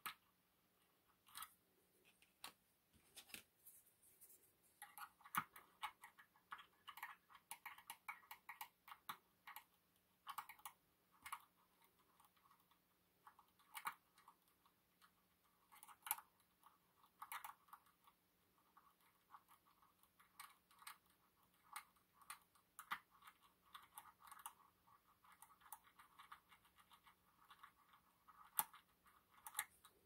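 Faint, irregular clicks and scratchy scraping of lock picks working in the keyway of an EVVA MCS magnetic lock cylinder, heard through a contact microphone on the lock, over a low steady hum.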